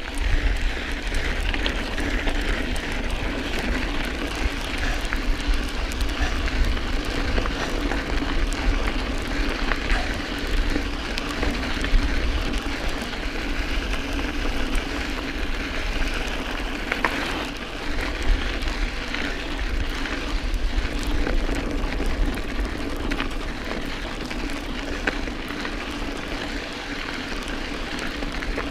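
Mountain bike rolling over dry, stony singletrack: steady tyre noise on gravel with many small rattles and clicks from the bike, over a continuous low wind rumble on the microphone.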